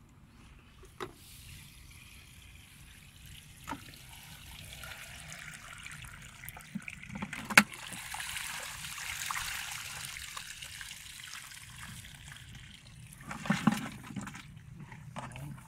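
Water trickling and dripping from a plastic-bottle fish trap wrapped in wet water weeds as it is handled. Several sharp clicks and knocks sound against it, the loudest about halfway through and a short cluster near the end.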